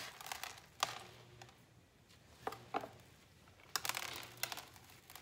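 Gloved hands working a succulent's root ball, with bits of potting soil dropping onto the plastic tote as a few light ticks and a denser rustle of small clicks near four seconds in.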